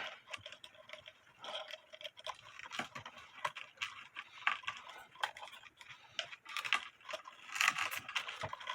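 Small metal clock chain rattling and clinking in irregular clicks as a knot in it is worked loose by hand.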